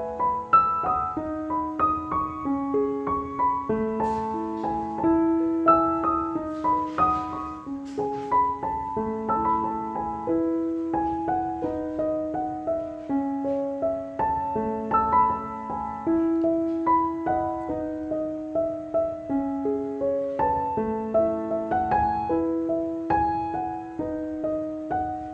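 Background music: solo piano playing a melody of note after note over a slow-moving lower line.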